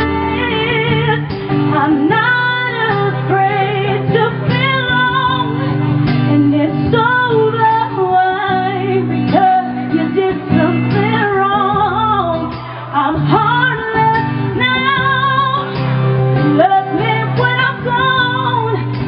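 A woman singing live into a handheld microphone, with wavering vibrato on held notes, over guitar accompaniment.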